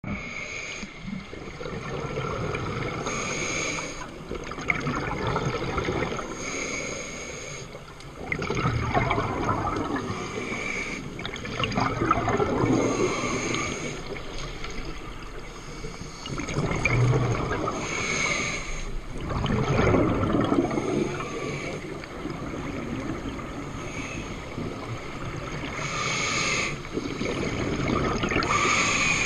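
Scuba diver breathing through a regulator underwater: a hissing inhale every several seconds, alternating with longer bursts of bubbling exhalation.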